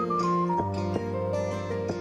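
Background music: a plucked-string melody over a bass line.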